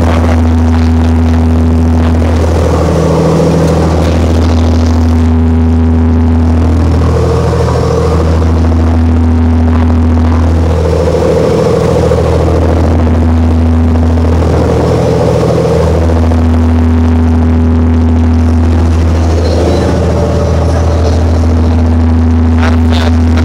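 Fishing boat's inboard engines running steadily under way, a loud continuous low drone. Water rushing along the hull adds a hiss, swelling every few seconds.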